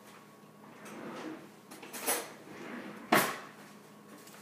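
Kitchen drawer sliding open and shut as a fork is taken out, with a single sharp knock about three seconds in.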